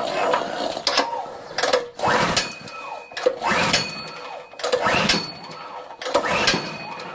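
Recoil starter rope of a Predator 212 single-cylinder engine on a gas pressure washer being pulled again and again, about one pull every second and a half, each a whirring sweep of rope and engine turning over with clicks. The engine is being cranked after a shot of fuel down the intake and does not catch.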